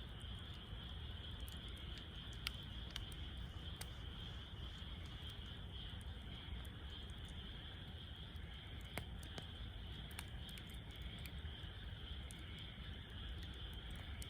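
Wood fire crackling in a Snow Peak fire pit, scattered sharp pops over a low steady rumble, with a steady high chirring of crickets throughout.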